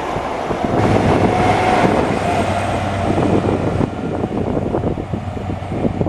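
A vehicle running close by, a loud, steady rumble with a low hum and a brief higher whine about a second in.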